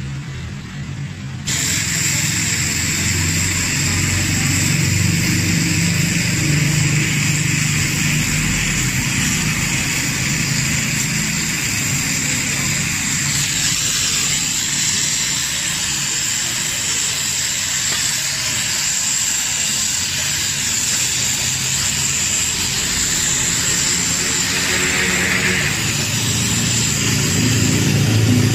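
LPG gas welding torch running with a steady hiss and a low hum underneath, during aluminium welding. The hiss comes in suddenly about a second and a half in.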